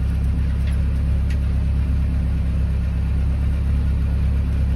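Vehicle engine running steadily with a deep, even low rumble.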